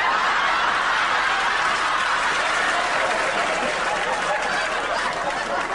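Studio audience laughing and applauding, a steady sustained wave that thins out a little near the end.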